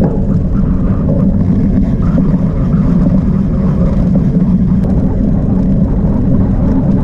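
Steady low rumble of a cyclocross bike ridden fast over grass, picked up by the onboard camera: tyre and riding noise mixed with wind on the microphone.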